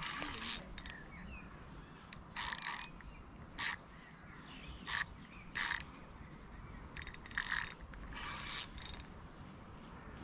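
Fishing reel's ratchet clicking in short rapid bursts, about seven of them at uneven intervals.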